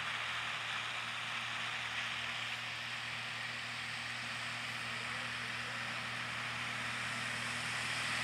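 Distant Cessna 170B light aircraft's six-cylinder engine running steadily at low power as the plane taxis on a grass strip, a low hum under an even hiss.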